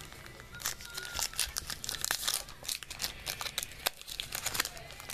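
Foil baseball-card pack wrapper being torn open and crinkled in the hands: a dense, irregular run of crackles and rips.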